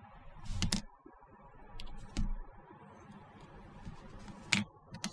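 Small plastic model kit parts being handled and set down on a work mat: soft rustling with a few sharp clicks, a pair under a second in and another one near the end.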